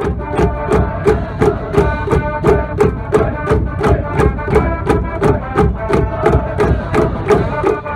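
School cheering brass band playing a fight song over a steady drum beat of about three hits a second.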